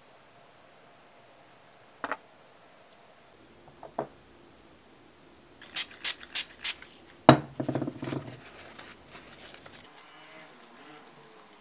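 A pump spray bottle squirted four quick times onto a paper towel, each a short hiss. A sharp knock follows, the loudest sound, then softer paper-towel rustling as the nail tips are wiped. Two small clicks come before the spraying.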